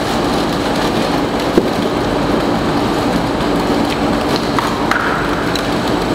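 Mortar mixer and pump running steadily with a constant hum and a dense rushing noise. A single sharp knock comes about a second and a half in.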